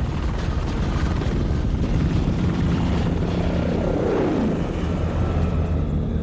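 Black Hawk helicopters running, a dense rotor and turbine rumble. About three and a half seconds in, a tone falls in pitch as one passes close.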